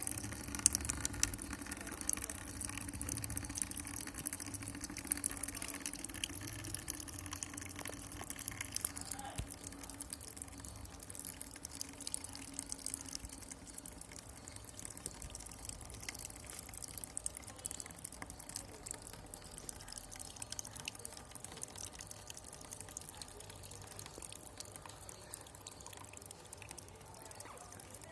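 Salt water from a neti pot trickling and dripping out of the nose into a basin during jal neti nasal rinsing, stronger for the first half and thinning out after about halfway.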